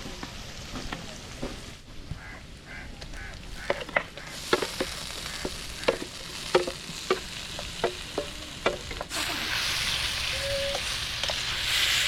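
A utensil knocking repeatedly against a cooking pot while food is stirred, then, about nine seconds in, a sudden steady sizzle of food frying in hot oil.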